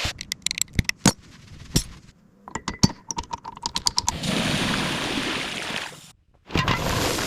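Workshop sounds: a run of sharp metallic clinks and taps, some briefly ringing, speeding into a quick rattle near four seconds in. Then a steady rushing noise that stops for a moment about six seconds in and starts again.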